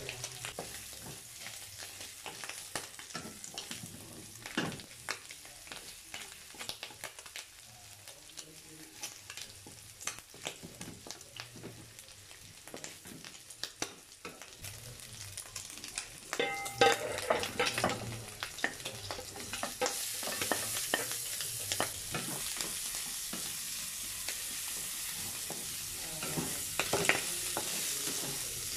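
Diced pork belly and minced garlic sizzling and crackling in oil in a non-stick wok, stirred and scraped with a wooden spatula. The sizzle grows louder and steadier about two-thirds of the way through.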